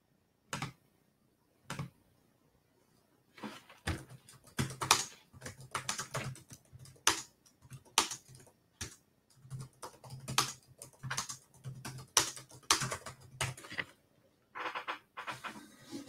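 Computer keyboard typing: two single keystrokes, then a long run of quick keystrokes, a short pause, and a second shorter run near the end.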